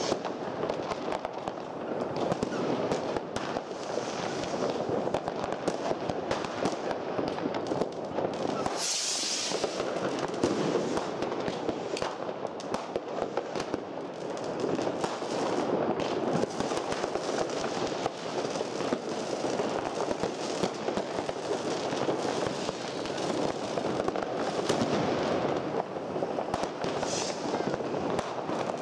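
Fireworks: ground fountains spraying sparks, with dense, continuous crackling and popping and many firecrackers going off. A brief hiss about nine seconds in, and another near the end.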